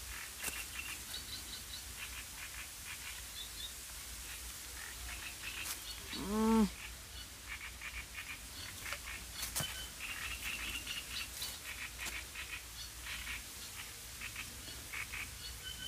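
Small birds chirping in short, repeated high notes, with a few sharp clicks and one brief low vocal sound about six seconds in, the loudest moment.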